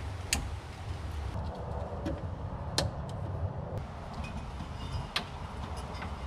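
Sharp clicks and light clatter from hands moving wiring and plastic parts under a car's dashboard: three distinct clicks a couple of seconds apart with fainter ticks between, over a steady low hum.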